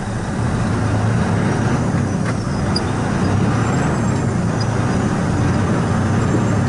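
Dump truck's diesel engine running steadily in the cab, a low drone that grows a little louder about half a second in, as the truck drives and shakes over a rough, rutted dirt construction road.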